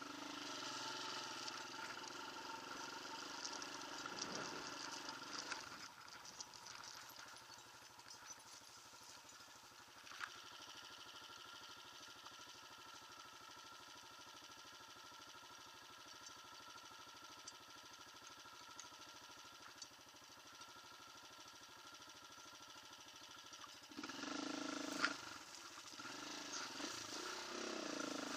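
Off-road motorcycle engine running at a steady speed. It is louder in the first few seconds and again near the end.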